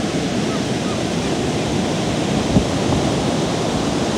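Ocean surf breaking and washing up a sandy beach, a steady rush of water. A single brief thump sounds a little past halfway.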